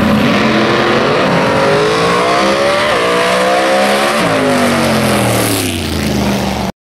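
A drag racing car's engine under full throttle down the strip, its pitch climbing with one gear change about three seconds in, then falling steadily as the car lifts off and slows. The sound cuts off abruptly near the end.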